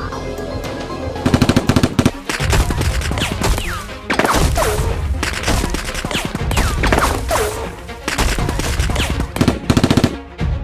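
Rapid machine-gun-style gunfire sound effects in bursts, about a second in and again near the end, with falling whistles between them, over background music.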